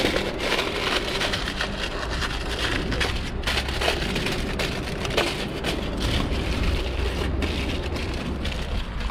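Aluminium foil and a plastic bag crinkling and rustling as they are handled to wrap a fish, with a steady low rumble underneath.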